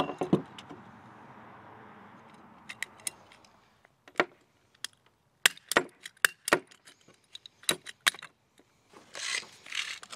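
Ratcheting plastic pipe cutter closing on a 1/2-inch CTS plastic pipe: a string of sharp clicks, about a dozen over four seconds, as the blade is squeezed through. A brief scraping rustle follows near the end.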